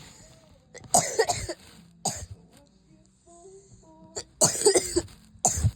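A person in a coughing fit: a quick run of harsh coughs about a second in, a single cough around two seconds, and another run of coughs near the end.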